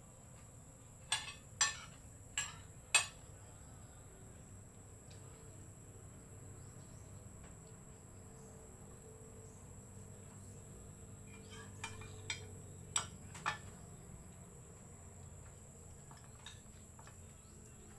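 Insects trilling steadily at a high pitch, two even tones running throughout. Over them come short sharp clicks: four in the first few seconds and four more around twelve to thirteen seconds in.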